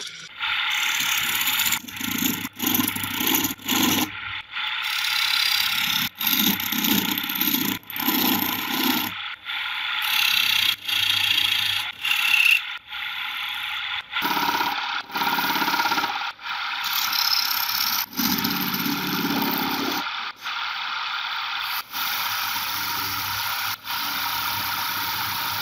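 Wooden disc spinning on a wood lathe while a hand chisel cuts into it: a steady hissing scrape of steel on wood, broken by many short gaps.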